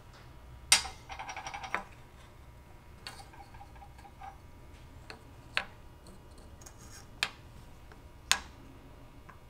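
Small pieces of wood being set down and handled on a workbench: a sharp knock about a second in, a quick run of small rattling ticks, then a few single taps spaced a second or two apart, over a faint low hum.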